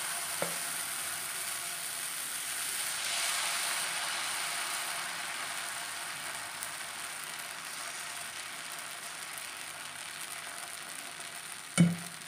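Ragi and saamai millet dosa batter sizzling on a hot dosa griddle as it is poured and spread thick like an uthappam, the hiss slowly weakening as the batter settles. There is a light tap about half a second in and a sharp knock near the end.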